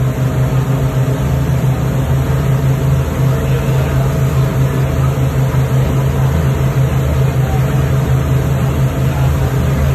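Tour boat's engine running steadily under way, a low drone with an even pulse.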